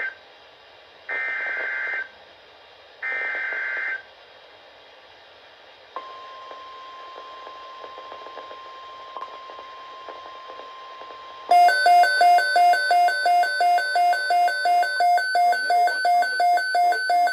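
Emergency Alert System SAME header: two short buzzy data bursts, then a pause and a faint steady NOAA Weather Radio 1050 Hz alert tone. About two-thirds of the way in, a loud, fast-pulsing electronic alarm beep takes over, the kind a weather radio receiver sounds when it picks up an alert.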